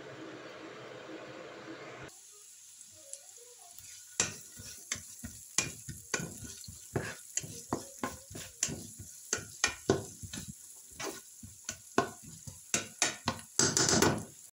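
Diced onions sizzling in oil in a nonstick pan while being stirred with a spatula. The spatula scrapes and taps against the pan about two or three times a second, with a quick flurry of strokes near the end.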